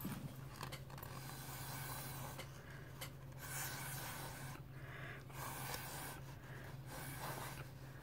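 Breath blown through a plastic straw onto wet alcohol ink in several airy puffs, each about a second long, pushing the ink across the sheet. A steady low hum runs underneath.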